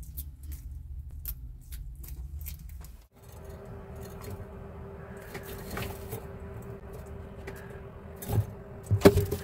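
A bearded dragon chewing, with small crunching clicks over a low hum. After about three seconds a steady low hum takes over with scattered clicks, and two louder knocks come near the end.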